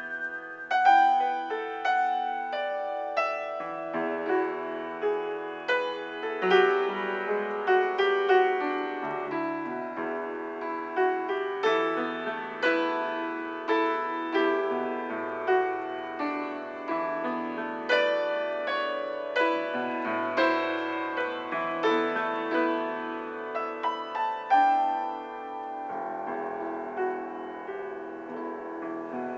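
Piano played solo as an improvisation: chords and melody notes struck one after another and left to ring over held bass notes.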